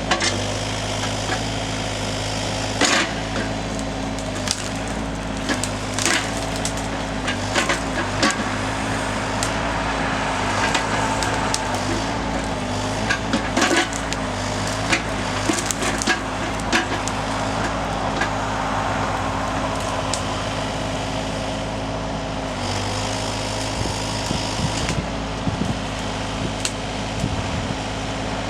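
Chinese mini excavator engine running steadily, its pitch wavering briefly about halfway through, with many sharp knocks and cracks scattered over it.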